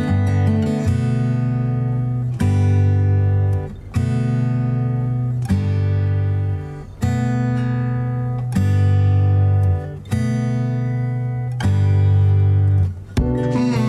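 Background music: an acoustic guitar strumming chords, with a new chord struck about every one and a half seconds.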